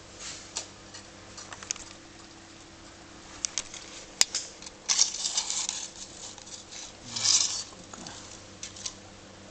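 Scattered light clicks and taps with two short scraping, rustling bursts, and one sharp click about four seconds in: small hard objects being handled.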